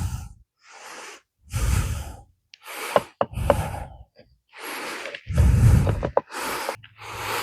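A man breathing hard in short, separate breaths or grunts, about eight in a row with brief pauses between them, as he strains at a stubborn part.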